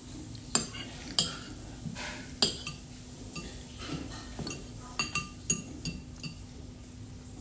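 Spoon clinking and scraping against a bowl while scooping up food, in a string of sharp, irregular clinks, the loudest about half a second, one second and two and a half seconds in.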